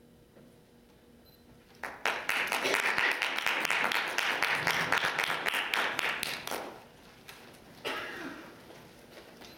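Audience applause after a short hush: it starts suddenly about two seconds in, holds dense for several seconds, then thins out.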